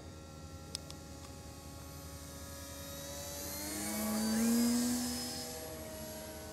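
Radio-controlled model aircraft flying overhead, their motor and propeller whine steady. One plane makes a close pass, growing louder to a peak about four and a half seconds in and then fading.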